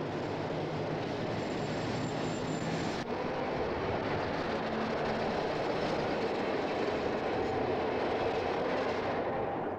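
A Peter Witt-type streetcar rolling past on street rails, its wheels and running gear rumbling steadily. The sound breaks off for an instant about three seconds in.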